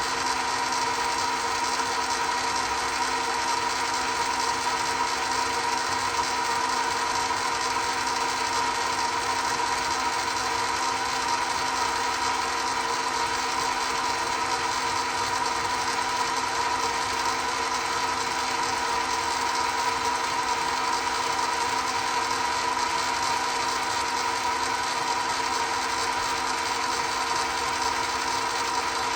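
Chinese mini lathe running steadily, with a constant whine over its mechanical noise.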